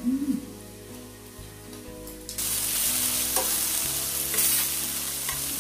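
Sliced vegetables (lotus root, carrot, zucchini, potato, mushrooms) sizzling on a round griddle pan over a portable gas burner. The sizzling starts suddenly a little over two seconds in, with a few light clicks of metal tongs as the pieces are turned.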